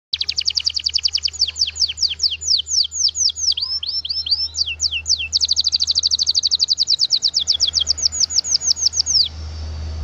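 Domestic canary singing a long song of trills: fast runs of repeated downward-sweeping notes, with slower, wider sweeps in the middle and a faster, denser trill from about five seconds in. The song stops a little over nine seconds in. A steady low hum lies underneath.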